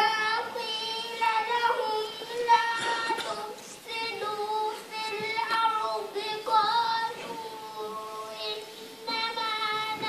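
A girl's solo voice singing slowly in long, held, ornamented phrases, with short breaks for breath between them.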